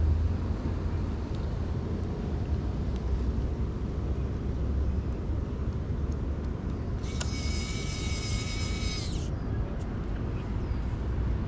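Steady low outdoor rumble. About seven seconds in, a steady high-pitched tone with overtones sounds for about two seconds, then stops suddenly.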